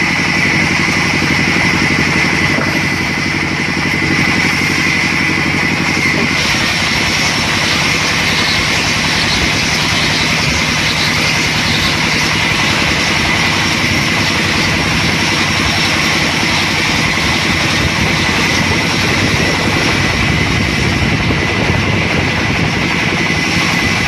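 Large vertical band saw running steadily with a steady high whine as a log is fed through it, the blade ripping along the length of the log. A higher hiss joins the sound about six seconds in.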